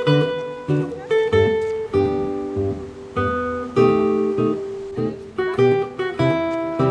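Background music on acoustic guitar: plucked and strummed chords, each struck sharply and left to ring out before the next.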